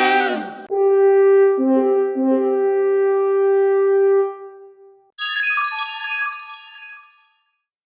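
iPhone ringtone previews played back to back, each cut short: one ends with a falling sweep just under a second in, a held brass-like chord follows for about four seconds, then a brief run of high chiming notes.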